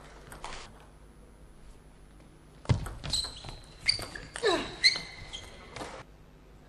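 Table tennis rally: a celluloid-type ball struck back and forth by rackets and bouncing on the table, heard as a run of about seven sharp, ringing clicks beginning about two and a half seconds in, with a short falling squeak in the middle of the run.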